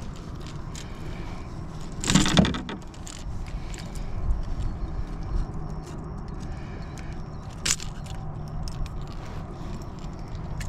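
Sounds of a hooked bass being fought and brought in from a kayak: rattling and scraping of tackle, with a louder rush of noise about two seconds in and a sharp click near eight seconds.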